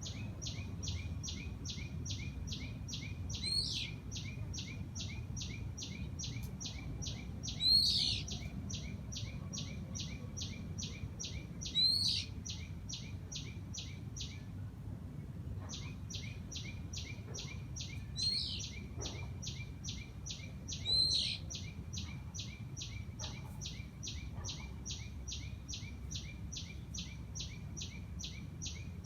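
Birds calling in garden trees: a sharp call falling in pitch sounds five times, a few seconds apart, over a rapid, even pulsing call of about three beats a second that stops briefly about halfway through. A low rumble of background noise runs underneath.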